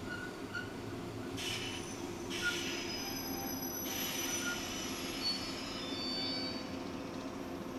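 JR Central 117 series electric train squealing as it brakes to a stop at a station platform: several thin high-pitched squeals over a steady low rumble, with two short hisses about a second apart early on and another hiss from about halfway through.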